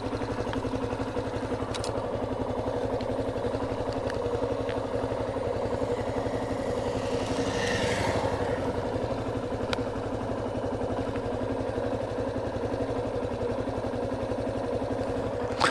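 An engine running steadily at a constant speed, with no revving, and a brief swell of hiss around the middle.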